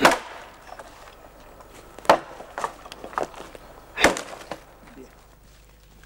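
Axe chopping into the base of a thin pine trunk: three sharp blows about two seconds apart, with fainter knocks and cracks of wood in between.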